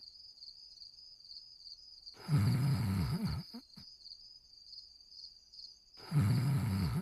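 Cartoon dog character snoring, two snores about four seconds apart, each just over a second long, the second running on past the end. Crickets chirp steadily underneath.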